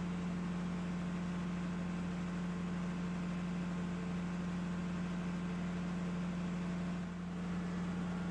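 Steady low mechanical hum from running machinery, with a strong low drone and a noisy hiss above it, dipping briefly about seven seconds in.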